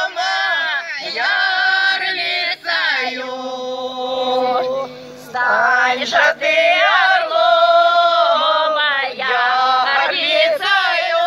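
A village women's folk ensemble singing a folk song together in long held notes, in several phrases with short breaths between them, amplified over stage loudspeakers.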